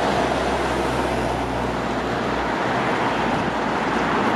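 Road traffic noise: cars driving along the street, a steady rushing sound with a low engine hum through the first half.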